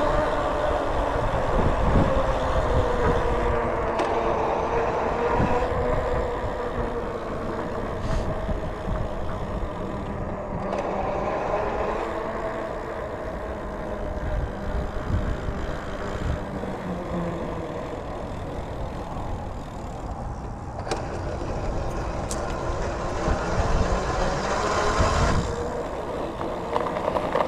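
Motor vehicle driving, its engine note slowly rising and falling over steady road and wind noise.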